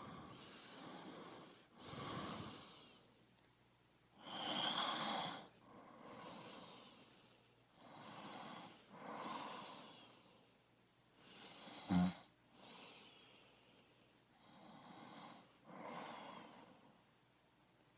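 Slow, heavy breathing: noisy breaths in and out every second or two. About twelve seconds in there is one short, sharp snore-like snort.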